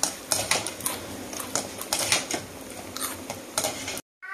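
Irregular sharp clicks and clinks of a wire strainer working against a steel frying pan as crisp fried rice-flour murukku vathal strands are moved and lifted from the oil. The sound stops abruptly near the end.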